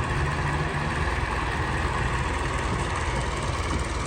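Tractor engine running steadily while working a rotavator through the soil, a constant low rumble with no change in pace.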